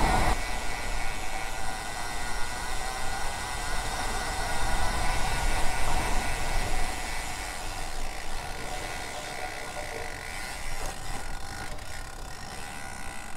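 A road bike coasting: the DT Swiss 240S ratchet freehub buzzing steadily, over wind and tyre rumble, slowly getting quieter.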